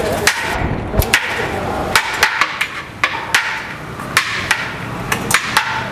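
Metal serving spoon knocking and scraping against a large aluminium biryani pot and a steel serving bowl as the rice is scooped out: sharp, irregular metallic taps, at times several a second.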